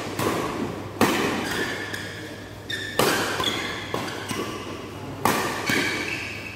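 Badminton rackets striking the shuttlecock in a doubles rally, three hard hits about two seconds apart, each echoing in a large metal-walled hall. Short high squeaks from court shoes sound between the hits.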